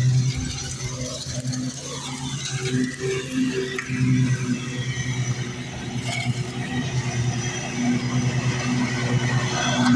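Zero-turn riding mower's engine running steadily as it mows, getting louder over the last few seconds as it comes closer.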